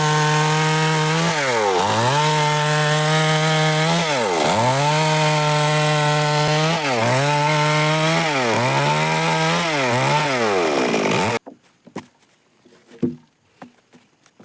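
Petrol chainsaw running at high revs, its pitch dropping sharply and recovering about seven times as the engine bogs under load in the wood. It cuts off suddenly about eleven seconds in, leaving only faint knocks and one louder knock.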